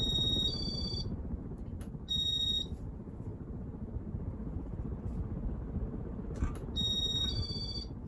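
Casablanca IntelliTouch control board in a ceiling fan giving off high-pitched electronic beeps: three short bursts, some stepping between two pitches. The fan runs underneath with a steady low rumble. The beeping is an unexpected noise that the owner puts down to the IntelliTouch board.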